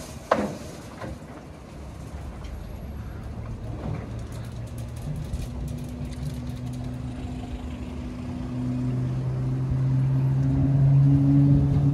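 WashTec EasyWash rollover car wash running, its rotating brushes working over a car, with a steady motor hum that grows louder in the last few seconds. A sharp knock about a third of a second in.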